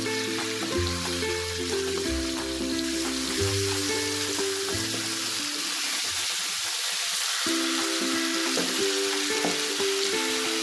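Marinated chicken pieces sizzling steadily as they fry in oil and ghee in a pan over a high flame. Background music plays over the sizzle.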